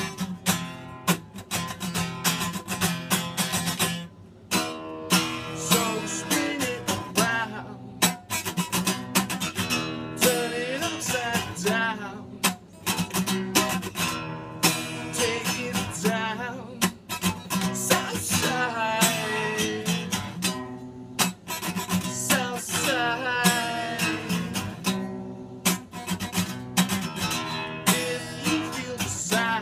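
Acoustic guitar strummed steadily while a man sings over it.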